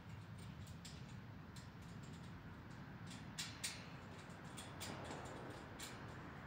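A few irregular light clicks and ticks from hands working on a steel-pipe frame and its wire-mesh panels, over a low steady background hum.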